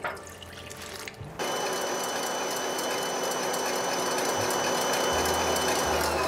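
Water poured into a steel mixing bowl, then a planetary stand mixer switched on about a second in, running steadily with a whine as its whisk beats albumin and water into foamed egg-white substitute. Its pitch drops near the end as the motor winds down.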